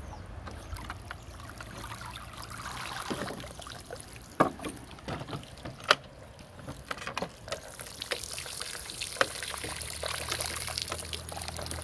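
Shallow stream water splashing and trickling as a plastic-bottle fish trap is handled among rocks, with a few sharp knocks around the middle. Near the end water pours and drips steadily out through the holes punched in the bottle as it is lifted from the water.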